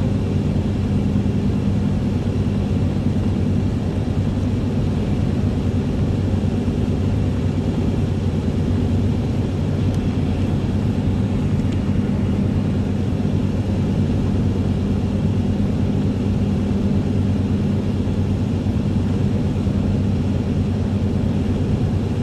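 Steady drone of a vehicle cruising at highway speed, heard from inside the cab: a constant low engine hum under tyre and road noise, with no change in speed.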